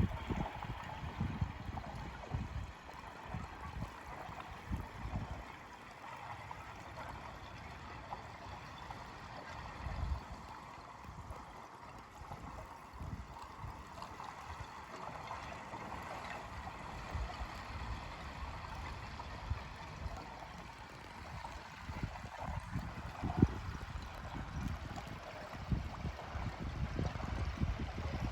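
Small waves lapping and sloshing against the edge of ice on a partially frozen lake, with irregular gurgling and splashes.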